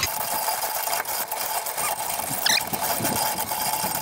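Hand-cranked Walters Fencing wire winder reeling in rusty barbed wire: a steady scraping hiss with many small clicks and ticks as the wire is dragged in and wound onto the spool, and a brief faint squeak about halfway through.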